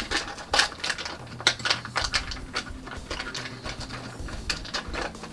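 Irregular clicking and clattering of small hard tools and parts being rummaged through while searching for a repair tool, over a faint steady low hum.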